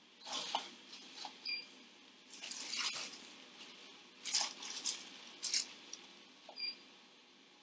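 Wooden stir stick scraping and clicking against the sides of a plastic cup while stirring glue, in irregular strokes.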